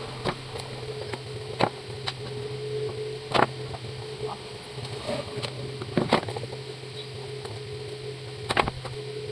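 A steady low electrical hum with irregular sharp clicks and knocks, as of the metal and plastic parts of a table fan being handled during repair.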